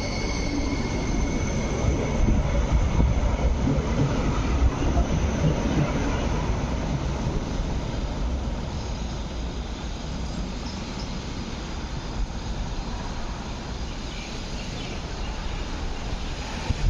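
MTR Light Rail Phase 5 light rail vehicle, built by CRRC, moving along the track with the running noise and low rumble of its wheels on the rails. A high whine fades out in the first few seconds.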